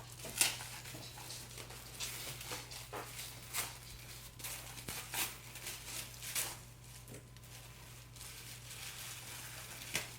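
Gift wrap and packaging being handled and opened: scattered short crinkles and rustles over a steady low hum.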